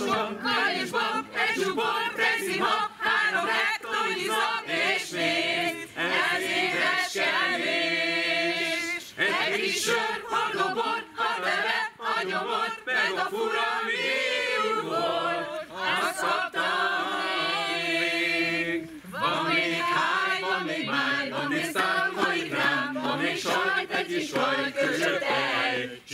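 Mixed group of men and women singing together a cappella, with no instrumental accompaniment and brief breaks between phrases.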